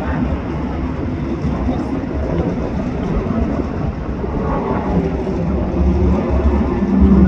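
Race cars' engines running at speed around a road course, heard from afar as a steady mechanical drone that gets louder near the end.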